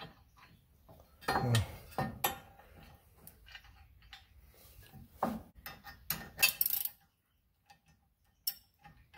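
Scattered small metal clinks and knocks as bolts, nuts and a metal skid plate are handled and threaded in by hand, with a brief quiet spell near the end.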